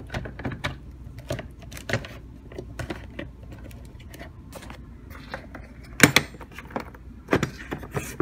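Hands handling hard plastic battery boxes and wiring: a run of small clicks and rattles, with a few sharper knocks about six and seven seconds in.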